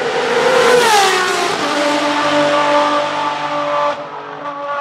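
Ferrari 599XX's V12 engine passing at speed on a wet track: loudest about a second in, its pitch dropping as it goes by, then holding a steady note as it pulls away, with the hiss of water spray thrown up by the tyres. The sound drops off suddenly near the end.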